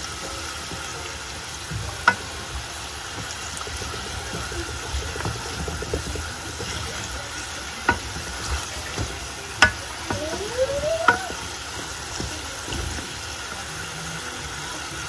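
Samosas deep-frying in a pan of hot oil: a steady sizzle, with a few sharp clicks through it.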